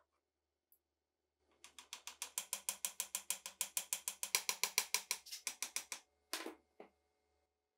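A metal ratchet clicking rapidly and evenly, about eight to nine clicks a second for roughly four seconds, each click with a slight metallic ring. Two separate knocks follow near the end.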